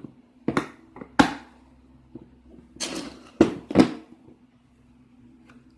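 Small hard objects being handled and rummaged through in a toolbox, giving about half a dozen sharp clacks and knocks, the loudest about a second in and a pair just before four seconds.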